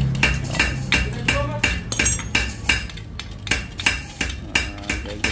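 Steel pliers knocking and scraping against the metal end cap of a titanium motorcycle exhaust muffler, a regular run of sharp metallic clinks about three a second, as stuck packing is pulled and knocked loose.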